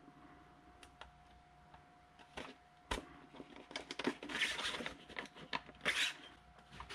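Faint clicks and scraping of 3D-printed plastic wing parts being handled and pressed together, with a few sharp clicks in the first half and a stretch of rubbing from about four seconds in.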